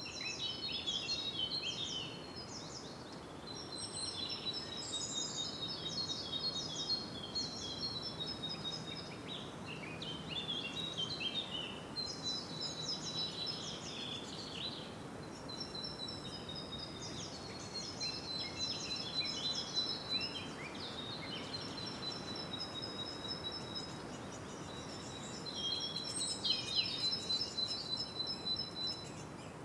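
Birdsong: high chirping and trilling phrases, one after another, over a steady background hiss.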